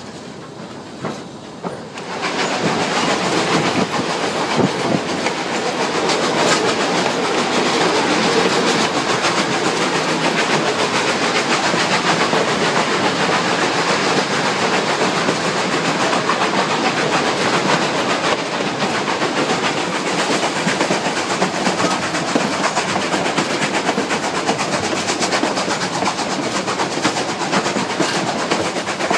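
Durango & Silverton narrow-gauge train running on the rails, heard from a passenger car: a steady rolling din of wheels on track with fine rapid clicking. It grows much louder about two seconds in.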